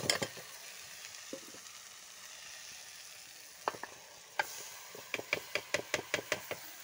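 Potatoes, onions and chillies sizzling softly in oil in a pot as poha (flattened rice) is tipped in from a steel dish. In the second half comes a quick run of about ten sharp metal clinks, about five a second, as the dish is knocked against the pot.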